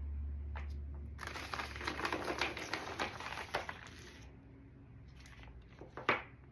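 Stones clicking and rattling against each other as a box of rocks and crystals is rummaged through, a dense run of quick clicks lasting about three seconds, then one sharp click near the end.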